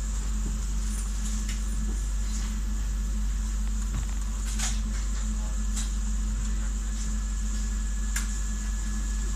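Steady low hum inside a regional passenger train carriage, with a few faint clicks and ticks.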